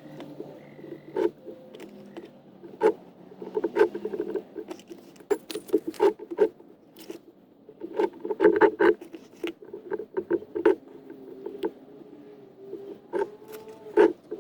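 Irregular scrapes, taps and clicks of a hand tool working cement render on a glazed clay pot, some strokes giving short squeaky tones.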